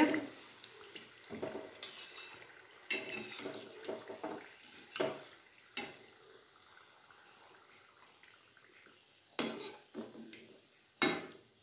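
Steel slotted spoon and wire-mesh strainer clinking and scraping against a steel kadhai as fried thekua are lifted out of the oil, in irregular sharp knocks with the loudest near the end. Frying oil sizzles faintly underneath.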